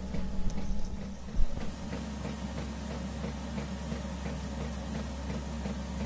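2 kW Chinese diesel heater running steadily just after start-up, a low steady hum with faint regular ticks that fit its fuel pump pulsing. A short knock about one and a half seconds in.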